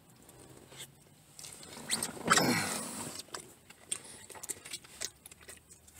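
Plastic fork scraping and clicking in a takeout food container, with scattered small clicks and rustles. About two seconds in comes a louder sound that slides down in pitch.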